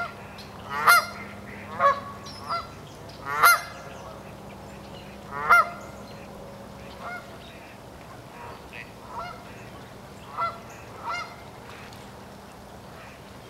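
Canada geese honking from a flock on the water: about ten separate honks, the loudest in the first six seconds, then fainter ones.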